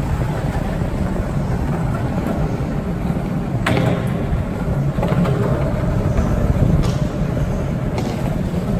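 Skateboard wheels rolling over a concrete parking-garage deck: a steady, loud rumble, broken by a few sharp clacks, the sharpest about three and a half seconds in.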